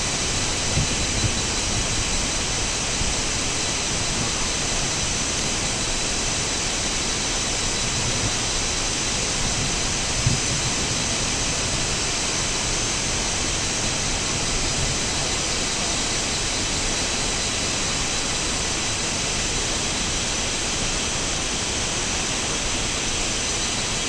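Steady forest ambience: an even rushing hiss with a thin, high whine held on top, and one low thump about ten seconds in.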